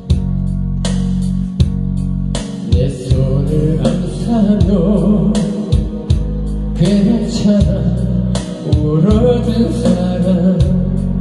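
Korean trot song performed live: a man sings into a microphone over a backing track with guitar and a steady drum beat.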